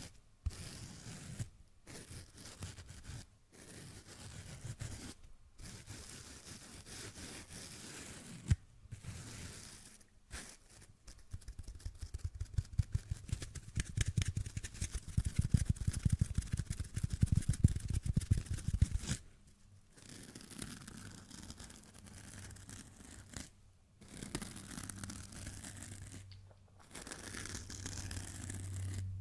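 Fingernails scratching and rubbing a fuzzy teardrop-shaped sponge held right next to a condenser microphone, in bouts with short pauses. A stretch of fast, dense scratching a little past halfway through is the loudest part.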